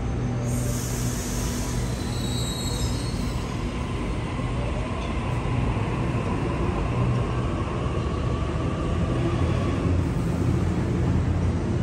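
Double-deck electric passenger train pulling out of the platform: a short hiss near the start, then a faint rising whine from the train as it gathers speed, over a rumble that grows louder.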